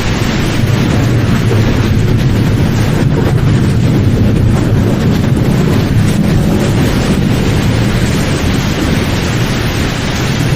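Loud, steady rumbling noise from an added sound effect, heaviest in the low end, with no tone or rhythm.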